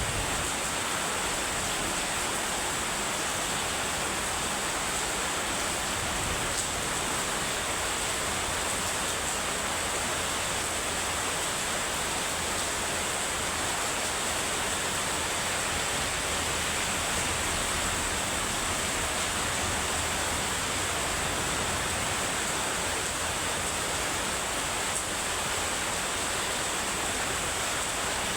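Heavy rain falling in a steady downpour, an even unbroken wash of noise.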